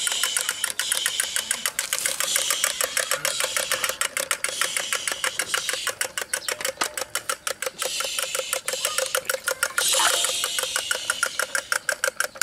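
Battery-operated Doraemon drummer toy running: its small motor whirs while the drumsticks tap the toy drum in a rapid, even beat.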